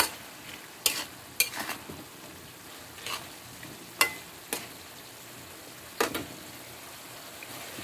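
A utensil stirring chunks of chayote and winged beans in a pan of simmering broth. It scrapes and knocks against the pan about eight times at an uneven pace, over a steady hiss from the pan.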